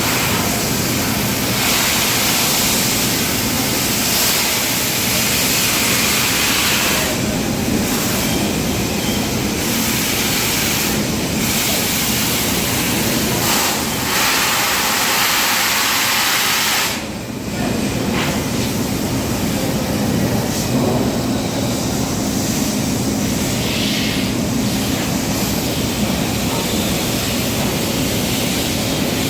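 TIG welding on a super duplex stainless steel pipe: a steady hiss with a low hum under it, briefly dropping away about two-thirds of the way through before carrying on.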